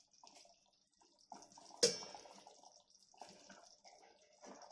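Faint bubbling and popping of a thick potato curry simmering in a kadhai, with one sharp click about two seconds in.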